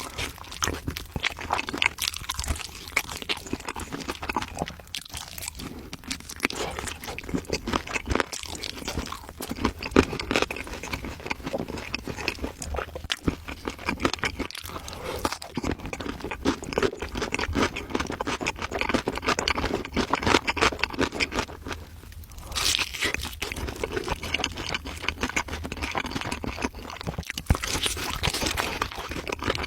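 Close-up eating sounds: crunchy food being bitten and chewed, with continuous crackly crunches.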